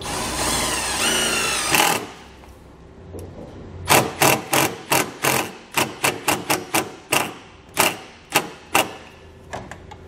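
A Milwaukee Fuel cordless driver running a self-tapping screw into the steel frame rail. Its motor whirs for about two seconds with a slightly rising pitch, then stops. From about four seconds in comes a run of sharp clicks, about three a second, as the screw is seated.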